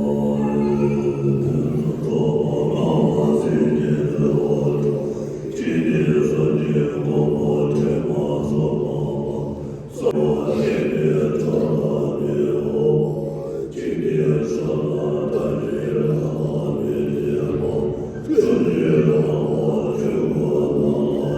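Buddhist monks chanting prayers in low voices: long drawn-out phrases of about four seconds each, separated by brief pauses for breath.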